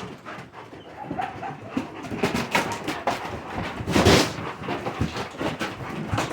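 Dog panting hard and fast in the heat, a quick train of short noisy breaths, with one louder burst about four seconds in.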